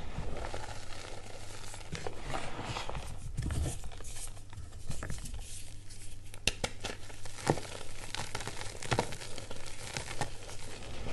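Reformed gym chalk crunching and crumbling as bare hands squeeze and crush lumps in a tub of loose chalk powder, with many short, sharp crackles and a steady gritty rustle of powder sifting through the fingers.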